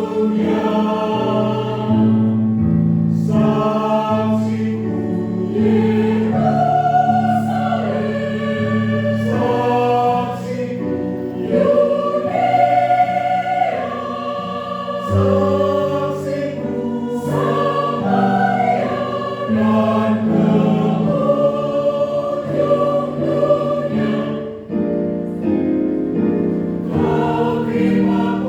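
A church choir singing a hymn in several parts, with sustained low notes underneath.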